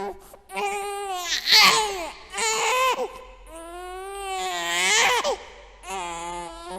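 Infant crying: three wailing cries, the longest one swelling to its loudest about five seconds in, each ending in a falling sob.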